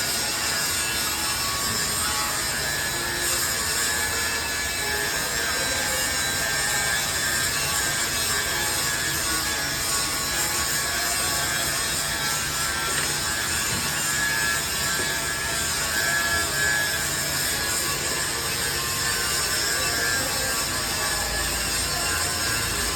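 Forging press machinery running steadily: a dense, even mechanical clatter and whirr.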